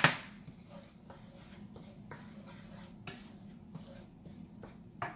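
A knife knocks sharply once against a nonstick frying pan, then faint scattered clicks follow as the knife and a wooden spoon stir through thick tomato sauce, over a steady low hum.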